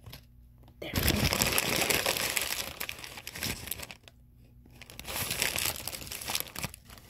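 Paper burger wrapper crinkling as it is handled, in two spells: one starting about a second in and lasting nearly three seconds, another starting about five seconds in.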